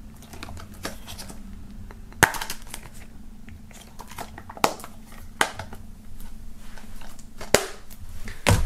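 Plastic DVD case being handled and opened: about four sharp plastic clicks and snaps, a second or two apart, with faint handling noise between.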